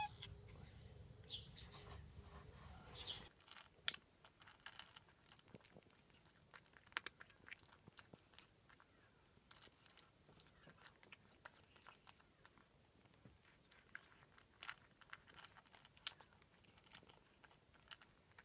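Cat eating from a plastic bowl, faint irregular crunches and clicks as it chews its food. Before that, about three seconds of low outdoor hum with a few faint high chirps.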